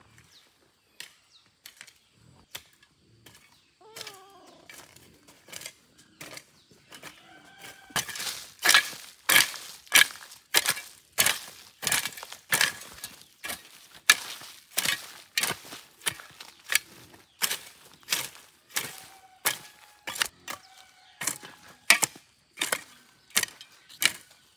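Steady rhythmic chopping strikes, about one and a half a second, faint at first and much louder from about eight seconds in, with a few faint chirps now and then.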